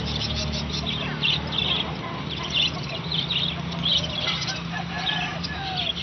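A shop full of caged budgerigars and other small birds chirping and chattering, with many short high chirps overlapping several times a second.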